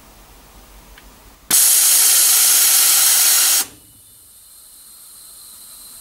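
Compressed air venting from a pneumatic valve actuator: a loud hiss that starts abruptly about a second and a half in and cuts off suddenly two seconds later, followed by a much fainter steady hiss.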